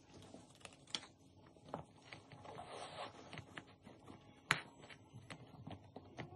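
Faint scattered clicks, taps and rustling of a foot being worked into black Osiris D3 sneakers with a long shoehorn, with one sharper click about four and a half seconds in.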